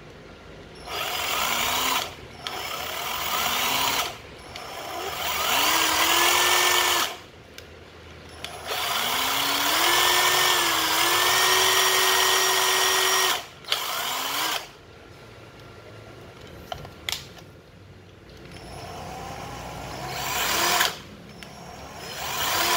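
A 12V cordless impact driver running unloaded in about six trigger-controlled bursts. In each burst the motor whine rises with the trigger and then holds; the longest lasts about four seconds. Each burst stops sharply under the electric brake, and there is no hammering because the bit is not under load.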